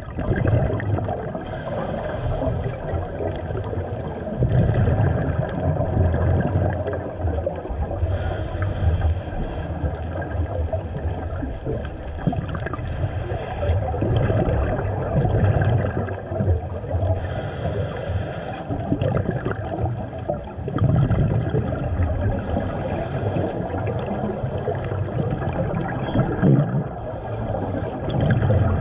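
Scuba diver breathing through a regulator underwater, five breaths: each a short hissing inhale with a faint high whistle, followed by a long bubbling gush of exhaled air.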